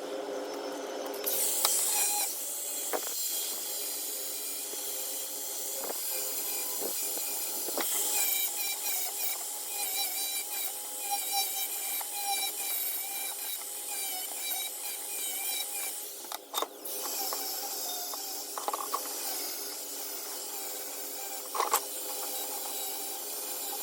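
Electric grinder running steadily against steel, grinding the surfaces of an exhaust flange and muffler clean to bare metal for welding. It dips briefly about two-thirds of the way through, then carries on.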